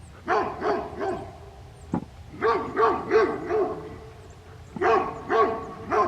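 A dog barking in three bursts of three or four barks each, with a single sharp knock just before the second burst.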